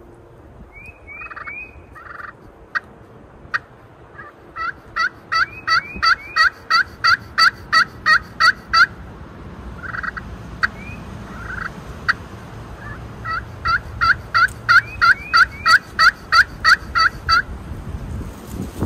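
Turkey yelping: two long, even series of loud yelps, about three a second, each lasting around four seconds, with a few softer calls and sharp clicks before and between them.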